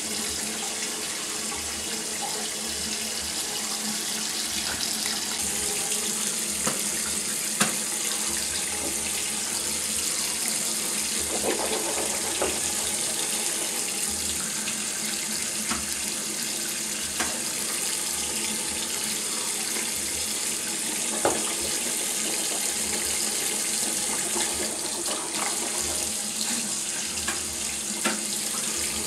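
Bathroom sink faucet running steadily into the basin, with a few short clicks along the way.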